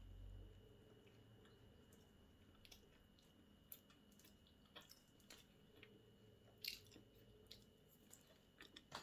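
Faint chewing of a mouthful of food, with scattered soft mouth clicks, the loudest about two-thirds of the way through.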